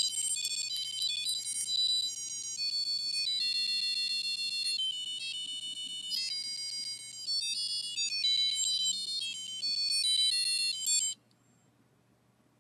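BBC micro:bit playing a fast techno-pop tune as a run of quickly changing, high electronic beep notes. The tune cuts off suddenly about eleven seconds in.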